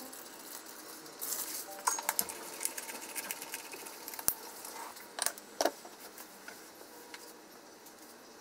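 Aluminium foil crinkling, then a pepper mill grinding black pepper: a run of small crunching clicks, with a few sharper clicks about four to six seconds in.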